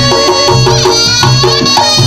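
Reog Ponorogo gamelan music: a wind-instrument melody bending in pitch over a steady, repeating drum beat.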